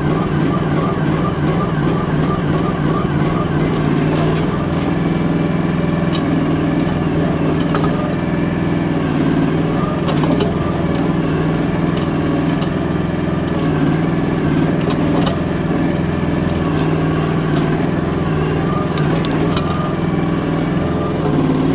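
Chinese micro excavator's engine running steadily while it works, with a few sharp knocks scattered through.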